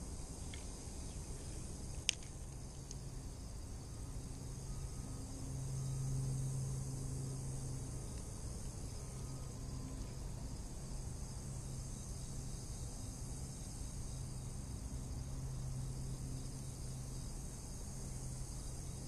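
Steady high-pitched buzzing of an insect chorus from the lakeside vegetation, with a single sharp click about two seconds in.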